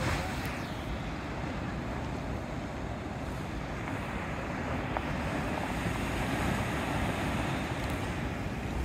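Ocean surf breaking and washing over a rocky shoreline: a steady rushing noise, with wind buffeting the microphone.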